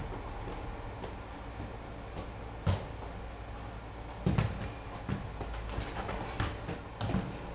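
A football being kicked: three short thuds spread a second or more apart, over a steady low background hum.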